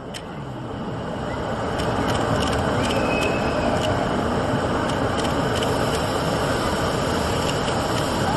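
Hand-held tezutsu bamboo firework tube spraying sparks: a steady rushing hiss that builds up over the first two seconds and then holds, with scattered sharp crackles.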